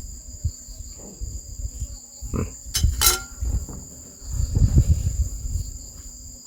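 Crickets trilling steadily, with close chewing and a few sharp clicks of someone eating.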